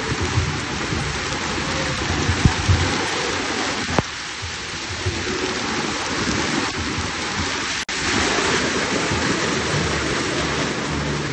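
Hail and heavy rain pelting down onto grass and paving: a dense, steady hiss of falling hailstones and water.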